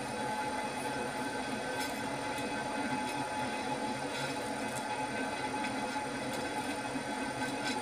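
Drill press running at very slow speed with its twist drill cutting into duplex stainless steel under constant feed pressure, as is needed to keep this steel from work-hardening. It makes a steady machine hum with a faint high whine and a few light ticks.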